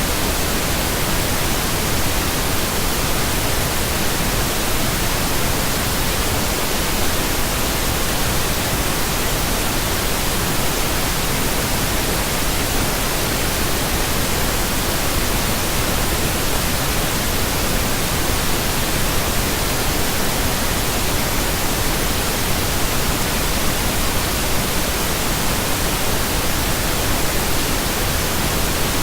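Steady synthetic pink noise: an even, unchanging hiss spread across all pitches, with no tones or events.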